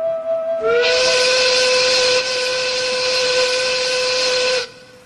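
Mill steam whistle blowing one long blast of about four seconds, sliding up slightly at the start and then holding steady, with a hiss of steam: the shift whistle calling the mill hands to work.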